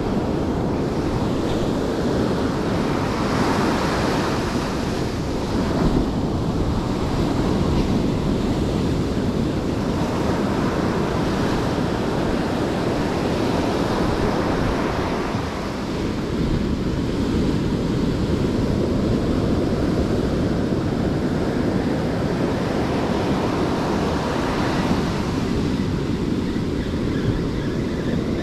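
Ocean surf washing onto a sandy beach, a steady rushing noise that swells now and then as waves break, with wind buffeting the microphone.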